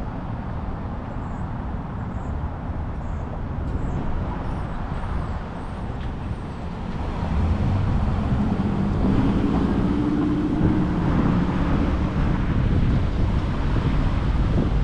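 Motor vehicle and road noise, a steady rumble that grows louder about halfway through as a low engine hum rises over it.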